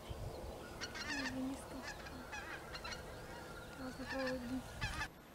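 A flock of wild geese flying high overhead, calling with scattered honks every second or so.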